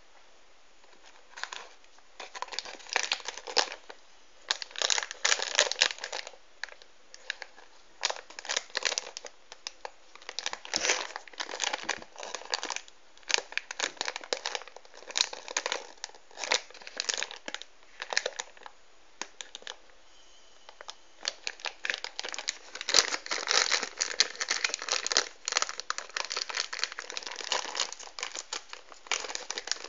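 Shiny plastic blind-bag packets crinkling in the hands in irregular bursts, with a short lull about two-thirds of the way through, then denser crinkling as a bag is worked open near the end.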